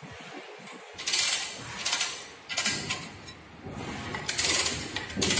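Metal parts of a Vissco Rodeo Ext reclining wheelchair, an aluminium and mild steel frame, rattling and clicking as its fittings are handled and adjusted. The clatter comes in about five short bursts.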